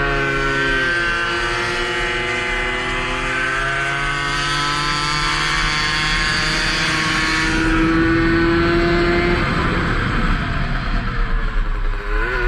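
Tomos 50 cc two-stroke racing moped engine at high revs, with wind rush on the onboard mic. Its pitch drops about a second in as it shifts up, then climbs steadily under full throttle; near the end it falls off and runs unevenly as the throttle closes for a corner, then picks up again.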